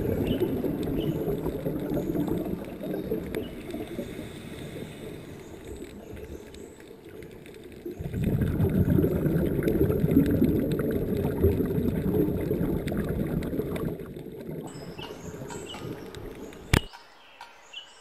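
Underwater water noise picked up by a diving camera in its housing, a low muffled rushing and gurgling, fading off and then swelling louder about eight seconds in. A sharp click near the end, then it goes almost quiet.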